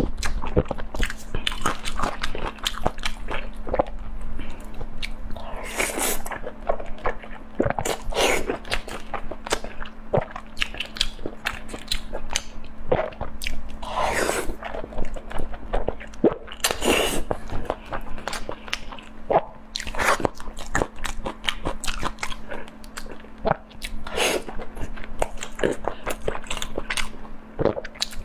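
Close-miked eating: a person chewing and biting food with frequent wet mouth clicks and smacks, and a louder noisy mouth sound every few seconds. A steady faint hum runs underneath.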